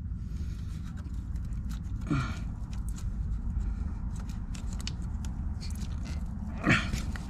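Fingers handling a plastic wiring connector by the engine's fuel rail: faint clicks and scrapes over a steady low background rumble. Two short vocal sounds falling in pitch, about two seconds in and near the end, the second one the loudest.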